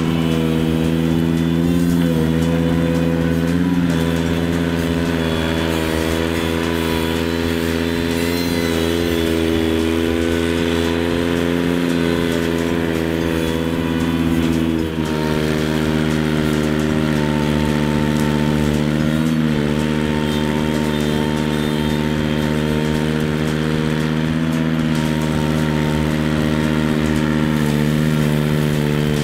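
Ventrac 4500 articulating compact tractor's engine running steadily as the machine pushes through deep snow and cattails, its note dipping briefly a few times under the load.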